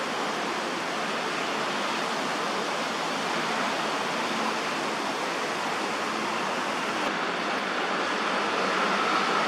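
A steady, even hiss of outdoor background noise with no distinct events. A faint steady tone joins it near the end.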